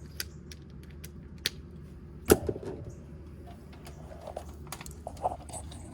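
Small clicks and taps of a hand tool working the screw lugs on an air conditioner's electrical terminals as wires are tightened down, with one sharper knock about two seconds in. A low steady hum runs underneath.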